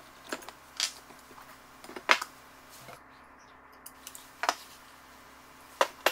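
Sparse clicks and knocks of metal parts being handled on a workbench as a small turbocharger is taken apart by hand. Its compressor housing is lifted off and pliers are used and put down. The loudest knock comes about two seconds in.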